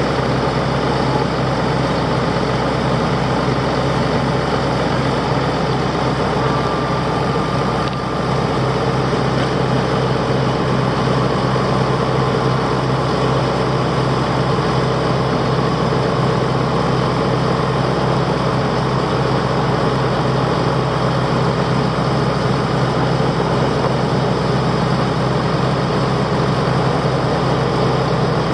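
A vehicle engine running steadily, with no change in speed.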